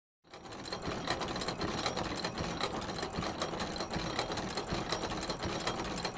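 Machinery sound effect: a steady mechanical clatter of rapid, even clicks over a whir, like gears or a small machine running, starting just after the beginning.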